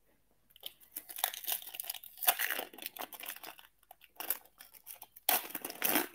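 Foil trading-card pack wrapper being torn open and crinkled by hand: irregular crackling, loudest from about five seconds in.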